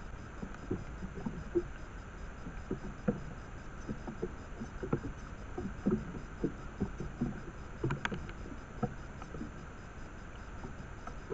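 Trail camera microphone's steady hiss, with many irregular soft low taps and rustles and a sharper crackle about eight seconds in.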